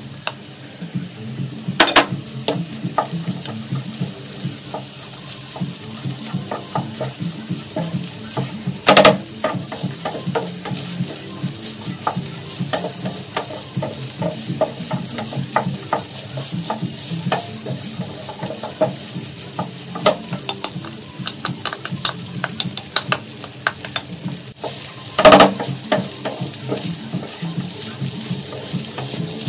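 Wooden spatula stirring and tossing fried rice with mixed vegetables in a nonstick frying pan, scraping and clicking against the pan over a steady sizzle. Three louder knocks stand out: about two seconds in, about nine seconds in, and near the end.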